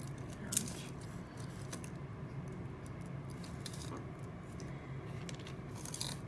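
Tangled costume jewelry (chains, pins and pendants) being handled and untangled: light scattered metallic clinks and jingles, a few louder near the start and near the end, over a steady low hum.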